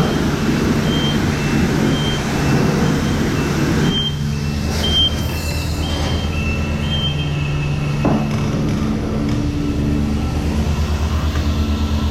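Self-serve car wash: a high-pressure wand sprays with a steady hiss that stops about four seconds in, leaving the wash pump's motor humming. A short, high beep repeats over and over through the first seven seconds.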